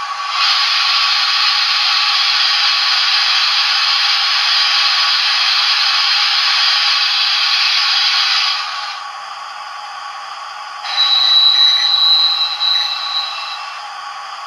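Steam-locomotive sound effects from the factory-fitted Hornby TTS sound decoder in the R3803TTS Hogwarts Castle model, played through its small onboard speaker. First comes a long, steady steam hiss of about eight seconds, then after a short pause a second hissing sound with a high steady tone in it, lasting about two and a half seconds.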